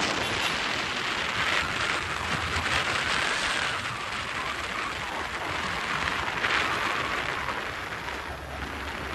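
Wind rushing over the microphone of a motorcycle riding at speed, an even roar that swells and eases unevenly, with road and engine noise underneath.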